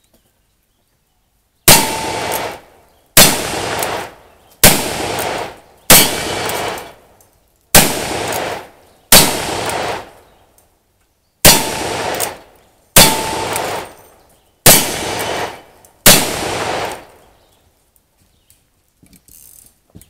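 Ten revolver shots fired one at a time, about a second and a half apart, with a longer pause about two-thirds of the way through. Each shot echoes briefly, and a few are followed by a short ringing ping from a hit steel target.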